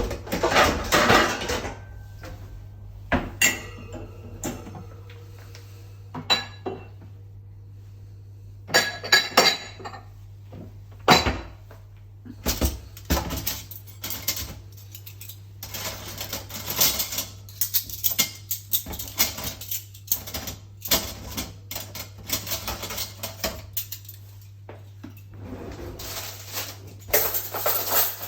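Dishes and cutlery clinking and clattering as they are washed by hand, in irregular bursts with short pauses between, over a low steady hum.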